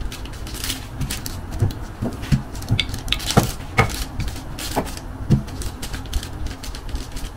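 Wooden rolling pin rolling cookie dough flat under a plastic sheet on a silicone baking mat: rustling with irregular light knocks and clicks as the pin is pushed back and forth.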